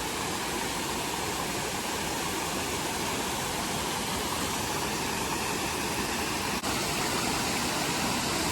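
Creek water rushing steadily over a small waterfall.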